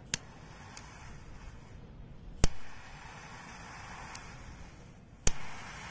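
A handheld gas lighter clicking as its igniter is struck again and again to light a pile of powder: five sharp clicks at uneven intervals, two of them loud, over a faint hiss.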